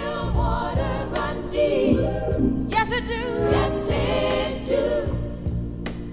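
Background music: a gospel-flavoured soul song with wavering, vibrato-laden singing and choir-like backing voices.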